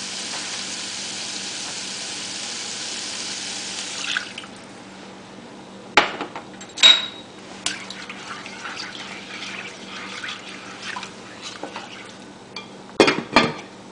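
Tomatoes and spices sizzling in a hot frying pan, the sizzle dying away about four seconds in once water is in the pan. After that the sauce crackles quietly, and a utensil clinks and knocks against the pan a few times while it is stirred, with a double knock near the end.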